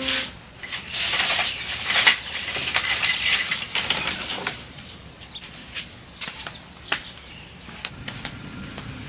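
Dry bamboo poles and branches clattering and cracking as they are pulled from a stacked pile: a run of sharp knocks and rustles over the first four seconds or so. After that a faint, steady high insect drone remains, with a low rumble coming in near the end.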